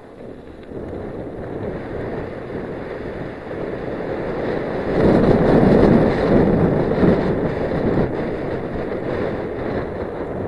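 Wind buffeting the microphone of a camera on a downhill mountain bike as it descends a gravel trail, mixed with the rumble of tyres on loose dirt. The rushing builds and is loudest midway through.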